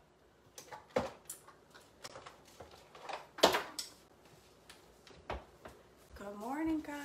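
A few scattered knocks and clicks in a small room, the loudest about a second in and about three and a half seconds in. Near the end a woman's voice starts a rising, sung greeting.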